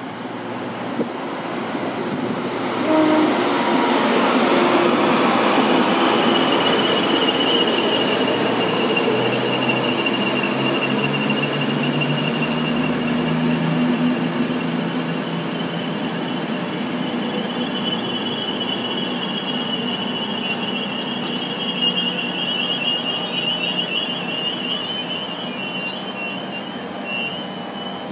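LNER InterCity 225 train of Mk4 coaches rolling slowly through the station, its wheels rumbling on the rails with a long, high, steady wheel squeal that wavers toward the end. The first few seconds hold a quieter stretch of train noise before it grows louder.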